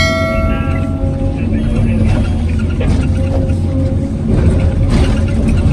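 Hyundai R850LC excavator's diesel engine running steadily under load, with a metallic ringing dying away in the first second.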